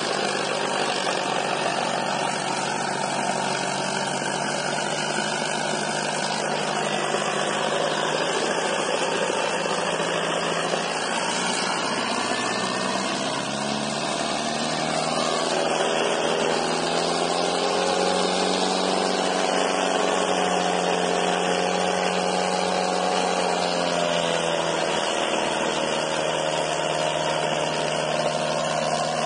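Sonalika tractor's diesel engine running hard under heavy load while it drags a disc harrow through loose dirt. The engine note holds steady at first, then wavers and shifts in pitch from about halfway through.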